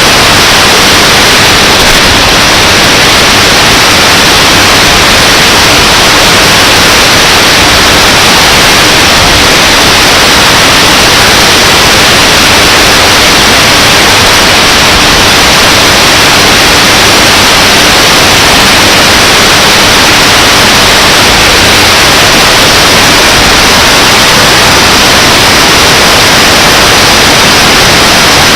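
Shortwave radio receiver static: a loud, steady hiss with no station audible through it.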